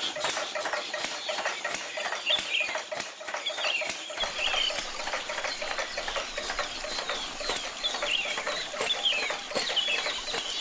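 Farmyard animal and bird calls: a busy run of short clucks and quick high chirps, with no machine sound under them.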